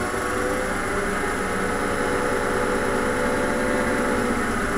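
Record Power wood lathe running freely with a wooden blank spinning on it and no tool cutting: a steady motor hum and whine, growing slightly louder over the first couple of seconds.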